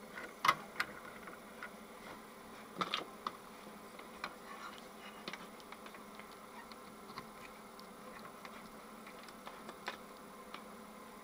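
Small clicks and taps of a test probe and hand tools handled against the open oscilloscope's circuit boards and metal chassis, a couple of louder ones in the first three seconds, over a steady faint buzzing hum.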